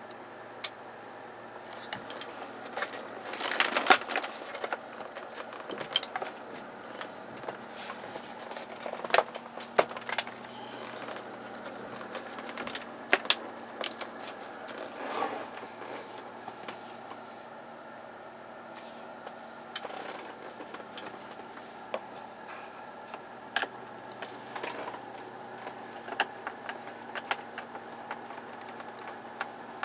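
Scattered clicks, knocks and a jangle of keys from handling around a car's steering column: an ignition key on its ring and a screwdriver against plastic trim. A faint steady hum lies under them, and the loudest rattle comes about three to four seconds in.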